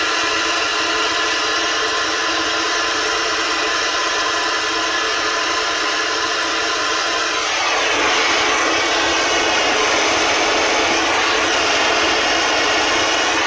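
Gas torch burning at full flame into a small firebrick forge, a steady rush of noise. It gets a little louder from about seven and a half seconds in, with a sweeping shift in tone.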